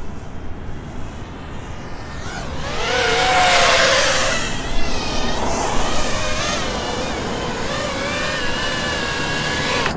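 FPV quadcopter's brushless motors and propellers whining as it flies in close, growing louder about two seconds in and loudest a second or two later. The pitch glides up and down with the throttle, then settles into a steadier warbling whine that cuts off at the end.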